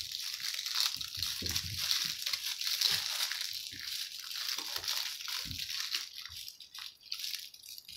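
Puppies chewing and tugging at plush toys on a fabric blanket: continuous rustling and crunching with scattered soft thumps.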